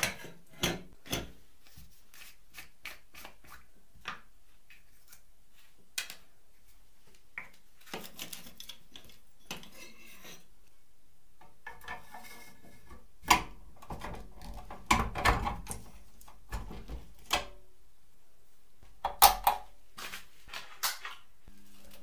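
Metal parts of a restored filmoscope filmstrip projector being handled and adjusted: scattered clicks, knocks and short scrapes, loudest around the middle and again near the end. A low steady hum starts just before the end.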